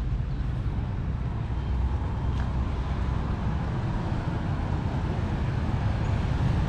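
Steady road traffic noise: a continuous low rumble of passing vehicles with no single event standing out.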